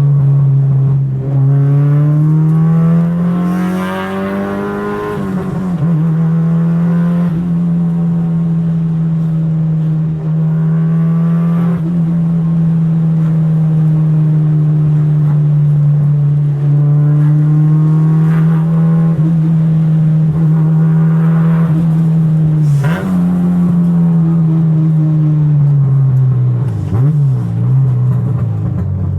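Car engine running hard for a long stretch, its pitch climbing to a peak about five seconds in, holding fairly steady, then dipping sharply for a moment about 23 seconds in and sinking lower near the end.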